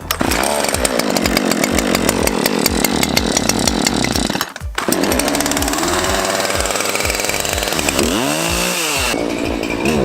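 Craftsman two-stroke gas chainsaw running and revving. The sound breaks off briefly about halfway through, and near the end the engine pitch rises and falls.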